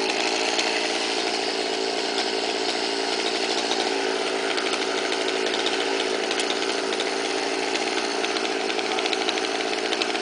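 Stihl two-stroke chainsaw running steadily at high speed, cutting through star pine wood.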